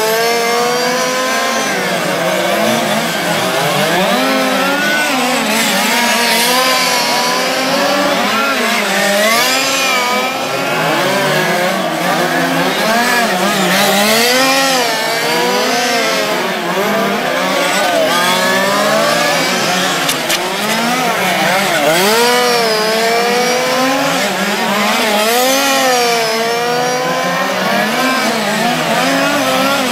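Several 1:5-scale RC racing cars' small two-stroke petrol engines running together, each rising and falling in pitch as the cars accelerate and brake around the track, their whines overlapping.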